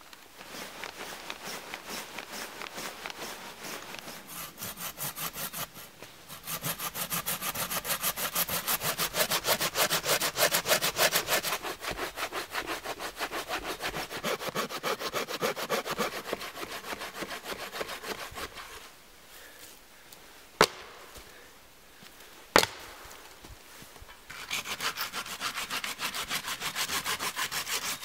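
Folding hand saw cutting through a snow-covered log in quick, rhythmic back-and-forth strokes. The sawing stops for a few seconds, when two sharp knocks sound (the loudest moments), then resumes.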